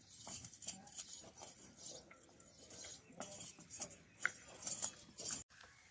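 A horse walking on a dirt path as it is led, its hooves making irregular light steps mixed with small clicks.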